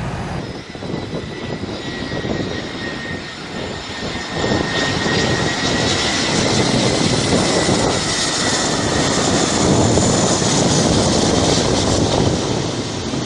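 Twin-engine jet airliner on low final approach: a loud, steady engine noise with a high whine, getting louder about four seconds in.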